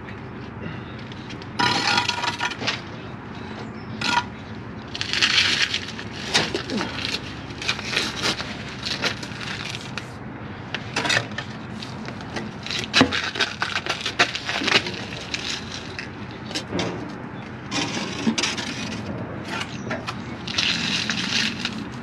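Bricklaying work at close range: a trowel scraping mortar and tapping against brick as the top course of bricks is filled in. There are several short scrapes and many sharp taps and clinks.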